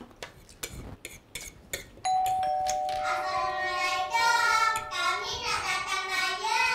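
Cutlery clinking on plates, then about two seconds in a two-note doorbell chime rings and holds. Children's voices outside call out the Raya greeting "Assalamualaikum, kami nak datang raya" over it.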